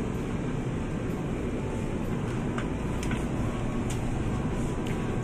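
Steady low hum and rumble of a supermarket's refrigerated display case and air handling, with a few faint clicks as milk bottles are handled on the shelf.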